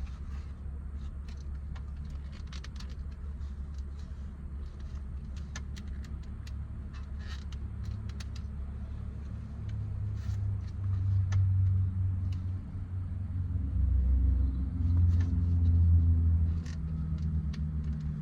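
Low vehicle rumble that swells louder in the second half, with scattered light clicks and taps of plastic interior trim clips being worked loose by hand.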